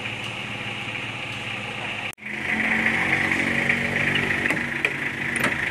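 Mitsubishi L300 pickup engine idling steadily. It cuts out for a split second about two seconds in and resumes a little louder.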